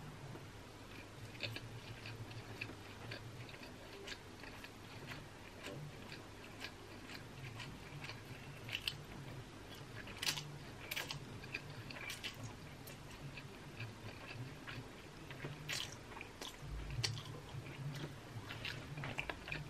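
Close-up eating sounds of a mouthful of yakisoba noodles: chewing and sucking in noodle strands, with scattered wet mouth clicks and smacks. A few sharper smacks come about halfway through and again near the end.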